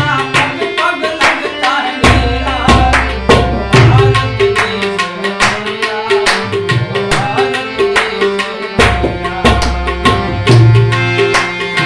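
Instrumental music: a harmonium holds the melody of a song over a steady tabla rhythm. Deep low notes swell in twice, about two seconds in and again near nine seconds.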